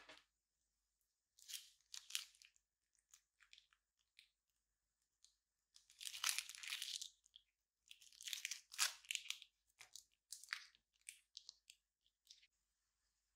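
Plastic piping bag crinkling and crackling as it is squeezed to push slime out, in short irregular bursts with a longer stretch about six seconds in and a busy cluster around eight to nine seconds.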